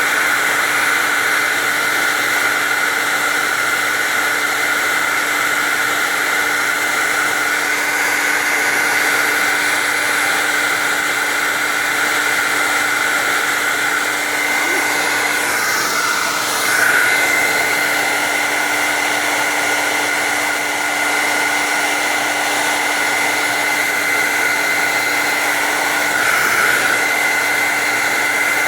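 Handheld blow dryer running steadily on its cool setting: a whirring fan with a steady high whine, with the airflow sound shifting briefly about halfway through and again near the end.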